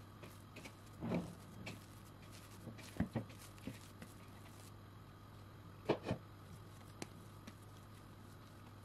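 Hands punching down and handling soft risen yeast dough in a wooden bowl: several soft slaps and thumps, two of them in quick pairs about three and six seconds in.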